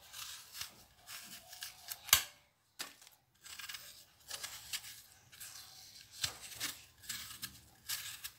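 Small kitchen knife peeling an apple by hand: a run of short, irregular scraping strokes as the blade cuts through the skin, with one sharp click about two seconds in.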